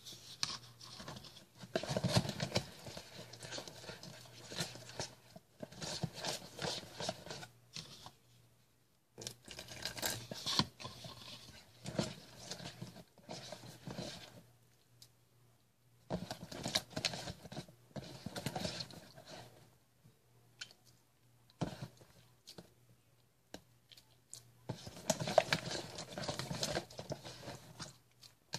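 Glitter glue and borax mixture being worked by hand into slime: spells of sticky crackling and squishing, four bouts with short pauses between.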